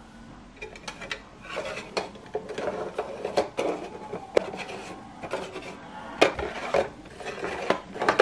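Small plastic drawer organizer being handled: drawers sliding in and out, plastic rubbing and knocking, and a series of irregular clicks, with a few sharper clicks about four, six and eight seconds in.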